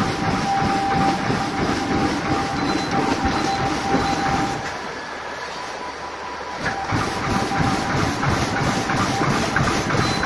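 Flat-opening plastic bag making machine running: a steady mechanical clatter with evenly spaced clacks about three times a second over a thin steady tone. It goes somewhat quieter and less clacky for a couple of seconds in the middle.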